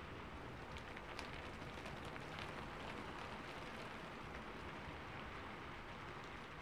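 Rain falling on a car's roof and windows, heard from inside the cabin: a steady hiss of rain with a few sharper drop ticks between one and two and a half seconds in.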